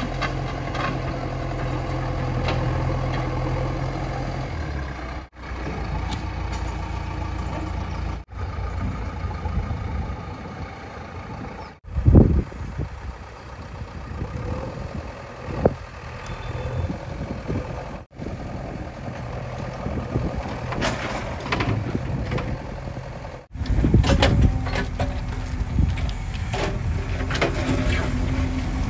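JCB 3DX backhoe loader's diesel engine running, breaking off briefly several times. There is a loud sudden clunk a little before the middle, a sharper one shortly after, and busier clattering over the engine near the end.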